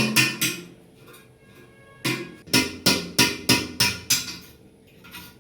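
Hammer striking a screwdriver used as a chisel to chip hardened cement from behind a ceramic commode: a quick run of sharp ringing strikes, a pause of about a second and a half, then another run of about seven strikes at roughly three a second.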